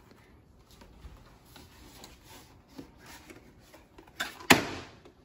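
Faint rustling and handling, then the lid of a small dark box lifted open with two sharp knocks about four seconds in.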